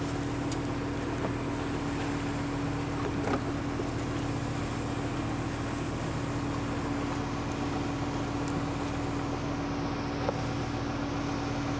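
A motor humming steadily at an even pitch, with a couple of faint knocks.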